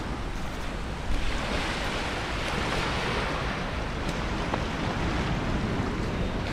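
Small ocean waves breaking and washing up a sandy beach in a steady wash, with some wind rumble on the microphone.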